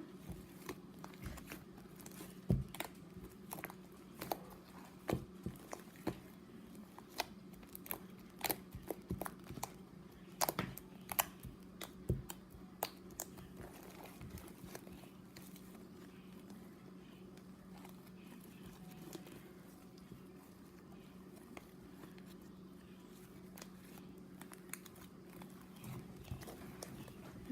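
Slime being squeezed and stretched by hand, with sharp little clicks and pops of trapped air, many in the first half and fewer later, over a steady low hum.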